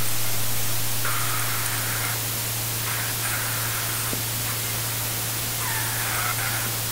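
Steady hiss with a low hum beneath it, and faint higher tones that come and go three times.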